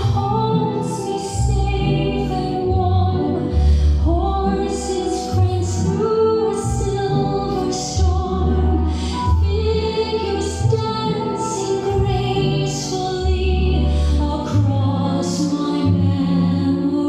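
Music: a slow song with a female singing voice over sustained bass notes.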